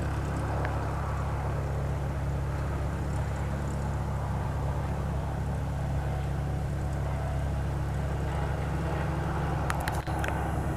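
Steady low engine hum with an even, unchanging drone, with a few sharp clicks near the end.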